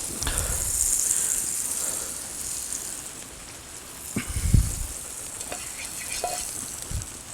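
Pancake batter sizzling in a hot pan, a high hiss that is strongest for the first couple of seconds and then eases. A dull knock comes about four and a half seconds in, with a few small clicks later.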